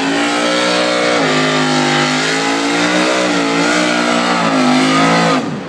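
Volvo Amazon drag car's engine held at high revs through a smoky burnout, its pitch wavering and stepping down slightly about a second in, then cut off sharply near the end.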